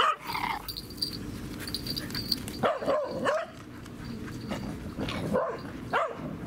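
A dog barking in short bouts: at the start, again about three seconds in, and twice more near the end.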